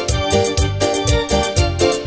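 Instrumental band music between sung lines: a keyboard playing chords and melody over bass notes and a steady percussion beat.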